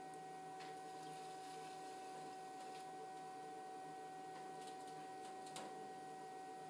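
Electric potter's wheel spinning with a steady, quiet motor hum and whine, with a few faint brief clicks and rubs as wet hands and a sponge work the clay.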